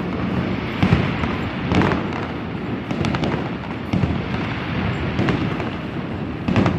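Fireworks going off: a string of bangs about once a second over continuous crackling.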